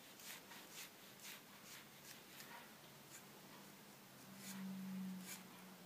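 Faint, short swishes of a small paintbrush dry-brushing paint along a wooden crate slat, about two strokes a second, over a low steady hum. The hum swells briefly about four seconds in.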